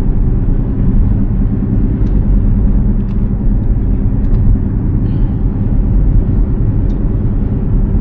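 Steady low rumble of a car on the move: engine hum and road noise.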